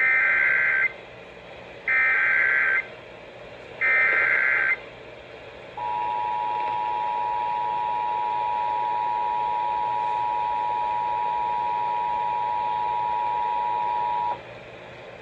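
Emergency Alert System header: three harsh SAME data bursts, about a second each and a second apart, then the EAS two-tone attention signal (853 and 960 Hz) held steady for about eight seconds and cut off sharply. It is the start of a station relaying a severe thunderstorm warning.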